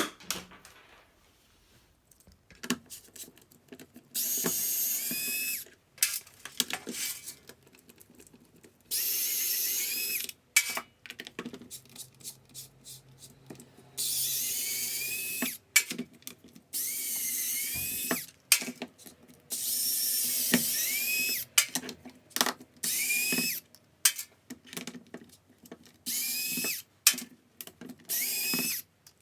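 A small cordless power tool's motor running in short bursts of one to two seconds, about seven times, its whine rising in pitch as each burst spins up, with clicks and handling noises between bursts.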